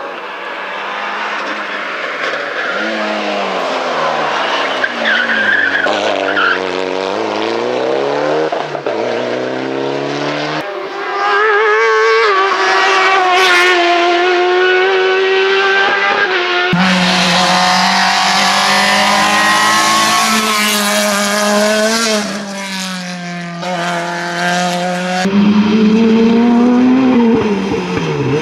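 Hillclimb race cars at full throttle, among them a Mitsubishi Lancer Evolution and a Ford Sierra RS Cosworth, both turbocharged four-cylinders. Each engine note rises and falls as the car accelerates and changes gear, and the sound switches abruptly from one car to the next three times.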